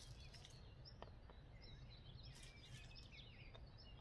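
Faint birdsong: many short, high chirps from small woodland birds over a steady low rumble, with a few soft clicks about a second in and again halfway through.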